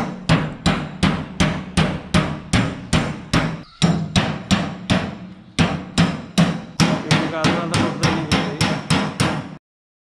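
Hammer blows driving a blade through the sheet metal of a tin ghee container, about three sharp metallic strikes a second with a short ring after each, stopping suddenly near the end.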